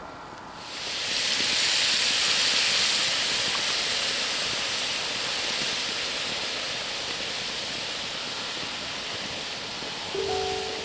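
Food sizzling in a hot pan: a loud hiss that starts suddenly about a second in and slowly dies down. A few music notes come in near the end.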